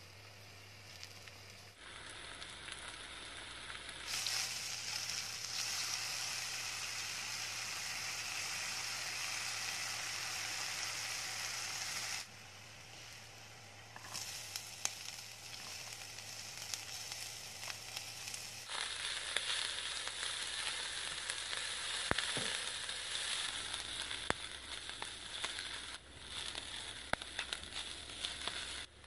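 Shiitake mushrooms and diced onion sizzling as they fry in a non-stick wok, stirred with a silicone spatula that gives a few light clicks against the pan. The sizzling comes in spliced stretches, stepping up about four seconds in and dropping back briefly near twelve and twenty-six seconds.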